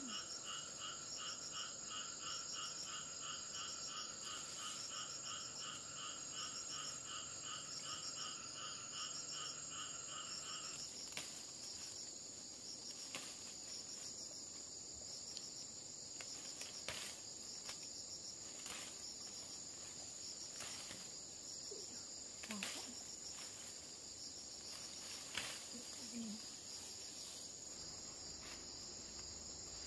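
Forest insects chirping: a steady high-pitched drone with a second, pulsed call of about three pulses a second that stops about a third of the way through. Later come scattered sharp snaps and rustles as leafy stems are broken off by hand.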